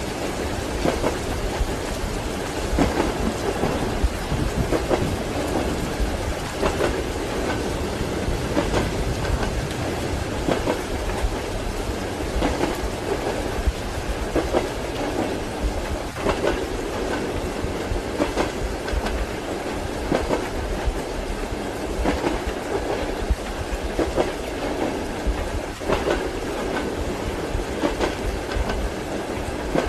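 Railway carriage wheels clacking over rail joints, a clack every second or two, over a steady low rumble of the train running, with rain heard beneath.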